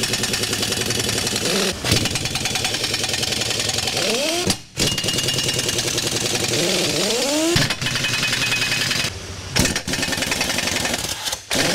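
Pneumatic impact wrench hammering on the bolts of bulldozer track pads as they are loosened. It runs in long bursts, broken by short pauses about halfway through and twice near the end, with its pitch sweeping up and down a few times.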